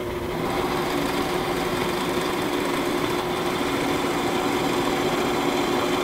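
Electric drill running at a steady pitch as it bores a 1 1/8-inch hole slowly down through two clamped 2x4 wood blocks.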